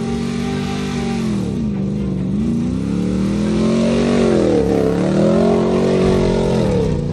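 Off-road rally car's engine revving hard: the pitch climbs, dips briefly about a second and a half in and again near the middle, climbs again, then falls away near the end.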